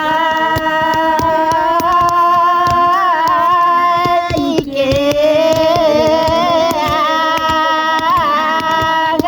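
A voice singing two long, drawn-out notes in a steady, slightly wavering pitch, the second starting about four and a half seconds in.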